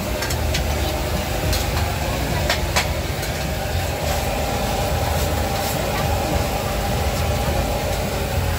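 Large bergedil patties deep-frying in a wok of hot oil: a constant sizzle with scattered sharp crackles and pops, over a steady low rumble.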